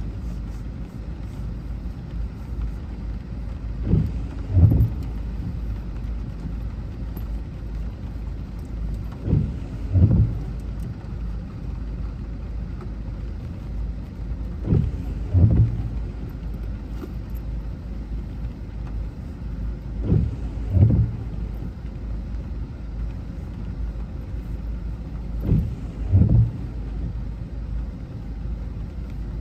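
Steady low road rumble inside a car's cabin. Windscreen wipers on an intermittent setting sweep about every five seconds, each sweep giving a pair of low thuds.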